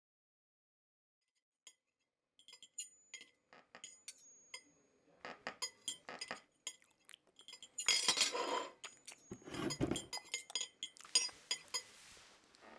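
Foley clinks and taps of glass, cutlery and crockery, irregular and ringing briefly, starting a couple of seconds in. A denser clatter comes about eight seconds in and a low thump near ten seconds.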